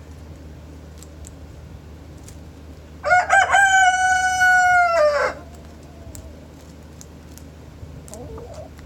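Rooster crowing once: a loud cock-a-doodle-doo about two seconds long, starting about three seconds in, with a broken start, a long held note and a drop in pitch at the end. A faint short chicken call follows near the end.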